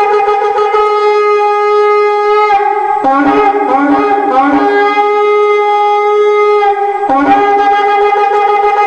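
Shofar blown in long, steady held blasts, broken about three seconds in by a few short blasts that each rise in pitch, then a long held blast again with a brief break and re-attack near the end.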